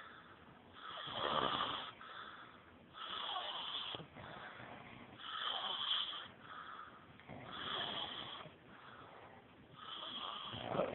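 A person snoring in a steady rhythm: about five snores roughly two seconds apart, with softer breaths between them.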